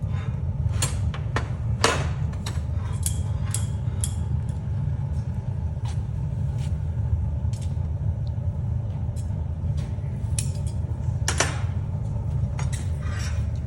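A steady low rumble with scattered sharp clicks and knocks; the strongest knocks come about two seconds in and near eleven seconds.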